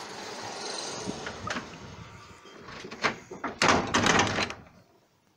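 Garage door closing: a steady sliding noise with scattered clicks, then a louder clatter about three and a half seconds in as it shuts, cut off abruptly about a second later.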